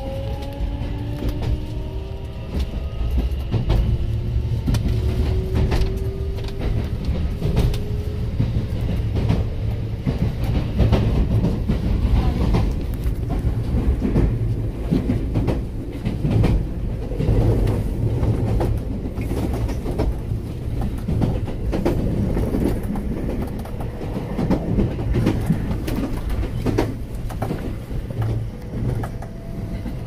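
Electric commuter train pulling away, heard from inside the car: the traction motor whine rises in pitch over the first several seconds as it accelerates. Then the wheels rumble and clack steadily over rail joints and points.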